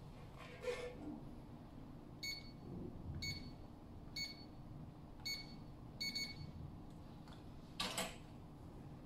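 Electronic keypad of a small steel drawer safe beeping as a new code is keyed in: about six short high beeps, roughly one a second, the last two close together. A soft knock comes near the start, and a brief rattling clunk near the end as the handle knob is turned.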